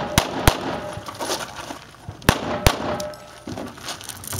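Four pistol shots in two quick pairs about two seconds apart, each pair followed by a short ringing tone.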